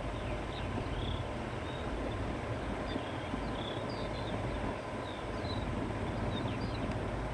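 Steady wind blowing over open countryside with a low rumble, while small birds chirp with short high calls scattered throughout.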